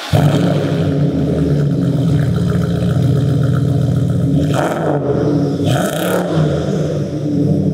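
BMW X5 4.4i V8 idling steadily just after start-up, its exhaust note loud and unmuffled through a muffler delete, on a car that no longer has all its catalytic converters.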